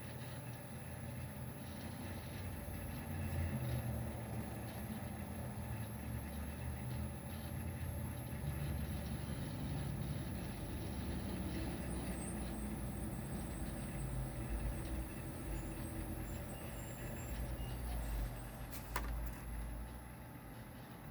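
Road traffic, trucks and cars passing, with a low rumble that swells and fades. There is a sharp click near the end.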